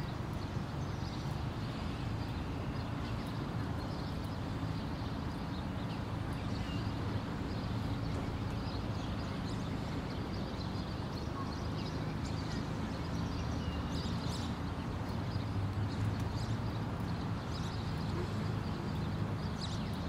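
Suburban subdivision ambience: a steady low rumble with a few faint, scattered high chirps, likely birds.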